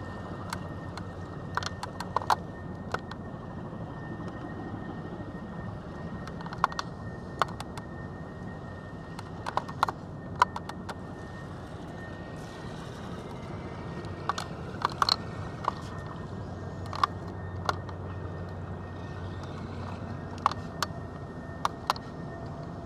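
Irregular sharp ticks of raindrops striking the vehicle's windshield and roof, over a steady low hum inside the parked vehicle's cab.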